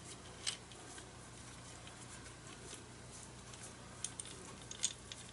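Faint handling noise and small clicks as a Panavise knuckle is opened up by hand: one click about half a second in, and a few light clicks near the end.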